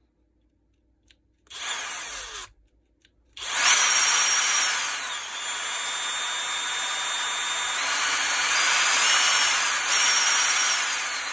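Brushless motor of a DeWalt DCH333 cordless SDS hammer, run outside its housing: a short spin about a second and a half in, then steady running from about three and a half seconds, its high electronic whine gliding and stepping in pitch as the speed changes. The motor shakes at high speed, which the owner puts down to either a bad contact or some other fault.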